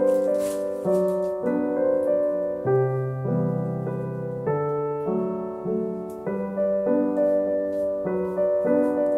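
Background music: a gentle solo piano piece, notes and chords changing about every half second.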